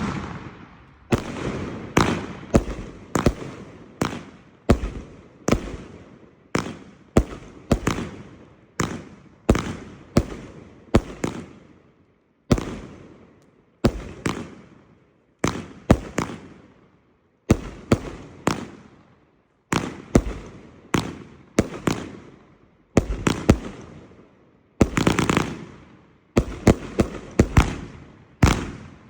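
Hallmark Fireworks 'Tigers Revenge' firework going off: a long series of sharp bangs, about one or two a second, each trailing off in a fading tail. Near the end the bangs come closer together.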